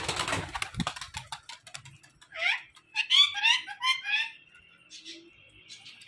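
Pigeons' wings clattering as they take off and fly out of a coop, a quick run of flaps in the first second. This is followed by a string of short, high chirping bird calls.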